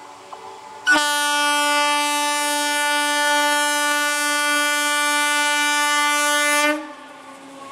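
Electric multiple unit (EMU) local train's horn sounding one long, steady single-tone blast of about six seconds. It starts sharply about a second in and cuts off near the end, as the train approaches.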